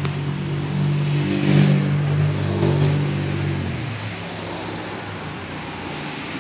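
Motor vehicle engine running close by: a low hum that swells about a second and a half in, then drops away about four seconds in.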